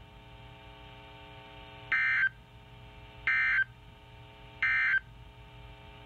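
NOAA Weather Radio SAME end-of-message code playing through a Realistic Weatheradio Alert receiver's speaker: three short, high-pitched digital data bursts, each about a third of a second long and about a second apart, marking the end of the weekly test broadcast. A fainter steady hum of tones runs between the bursts.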